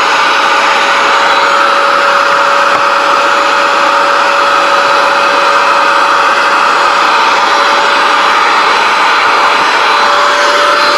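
Vacuum cleaner running steadily: a constant motor whine over a rush of air.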